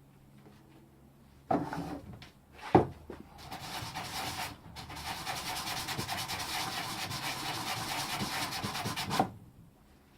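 Two sharp knocks, then an electric palm sander running against wood for about six seconds before it stops, smoothing the surfaces to be glued.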